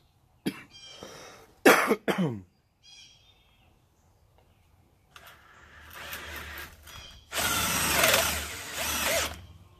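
Cordless drill with a long twist bit boring a hole through a wooden board. The motor starts up about five seconds in, runs loudest from about seven to nine seconds as the bit cuts through, then stops. A few short sharp sounds come in the first couple of seconds.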